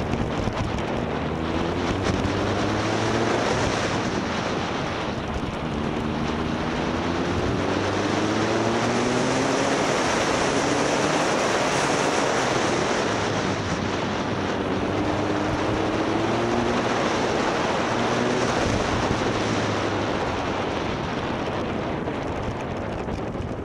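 Motorcycle engine pulling through the gears, its pitch climbing and dropping back about four times as it shifts up, under heavy wind noise on the microphone.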